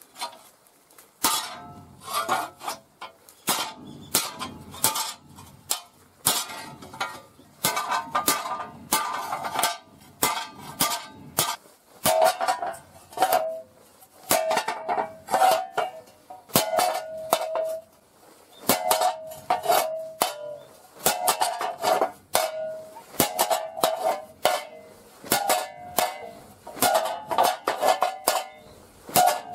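Hand hammer striking a heavy rusty steel plate over and over, each blow a sharp metallic clang with a short ring, at an irregular pace of one or two blows a second.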